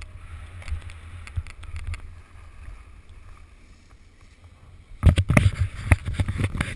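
Low wind rumble on a ski-mounted action camera over the faint scrape of skis on packed snow, fading as the skier slows. About five seconds in, a run of loud knocks and rubbing as a gloved hand handles the camera.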